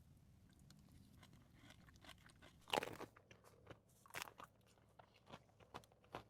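Faint mouth sounds of chewing a dessert close to the microphone: scattered small crunches and clicks, with a louder crunch about three seconds in and another a little after four seconds.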